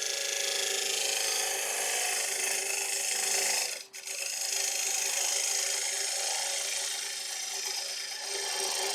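3/8-inch bowl gouge cutting into the inside of a spinning ash bowl on a wood lathe: a steady scraping hiss of shavings coming off, over a constant low tone. The cut breaks off briefly about four seconds in, then carries on.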